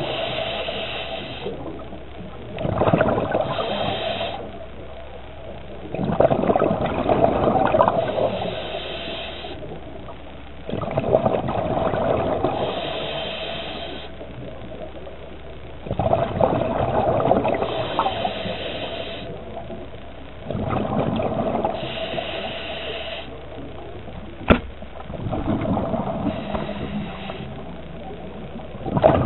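Scuba diver breathing through a regulator underwater: a hiss and a gush of exhaled bubbles, repeating about every five seconds. One sharp click about 24 seconds in.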